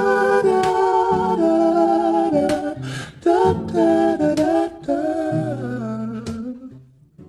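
Background R&B song in which wordless humming and sung vocals with harmonies run over held bass notes; it fades out near the end.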